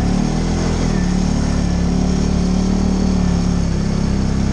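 TGB Blade 550 4x4 ATV's single-cylinder four-stroke engine running steadily under way, a low drone holding a near-constant pitch.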